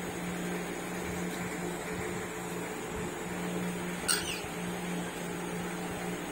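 A steady low mechanical hum fills the room, with one short sharp sound about four seconds in.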